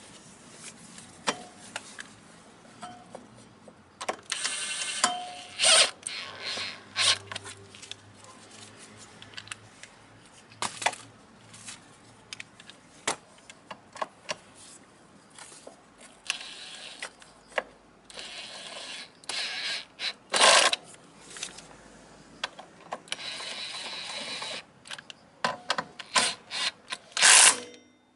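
Ratchet wrench clicking in several runs of a second or two, between scattered clinks and knocks of metal tools and parts during rear brake pad work on a scooter.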